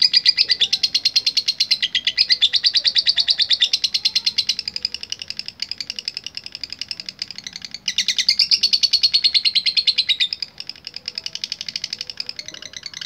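Lovebird singing a long, fast chattering trill ("ngekek"), a rapid run of high repeated notes, with brief breaks about eight seconds in and again about ten and a half seconds in.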